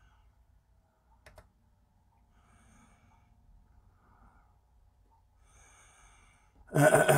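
Quiet room with a single faint click a little over a second in, then near the end a loud voiced sigh that drops in pitch.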